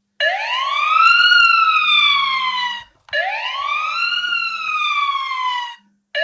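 Electronic alarm siren of a Marlboze PG-105 home security alarm, set off in SOS emergency mode. It wails in repeated sweeps that rise quickly and then fall slowly, each about three seconds long with a brief break between them: two full cycles, and a third starting at the very end.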